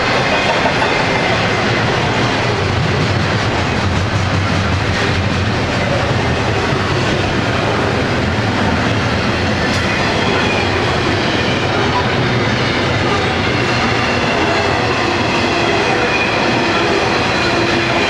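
Fast intermodal freight train of double-stack container cars and trailer flatcars passing: a loud, steady rumble of steel wheels running on the rails.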